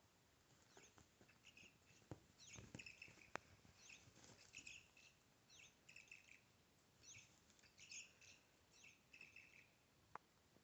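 Electronic chirping cat toy giving off faint, repeated groups of short, high, bird-like chirps, with a few soft knocks in between.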